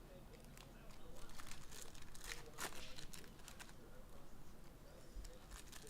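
Trading card packaging being torn open and crinkled: irregular crackling and tearing of wrapper, starting about a second in.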